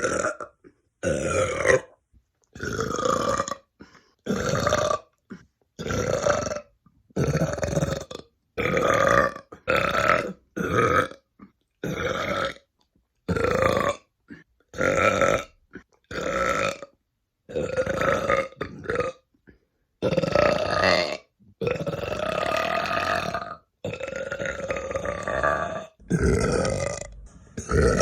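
A woman burping loudly again and again, about one burp a second, each a separate belch with dead silence between. Several in the later part are longer and drawn out.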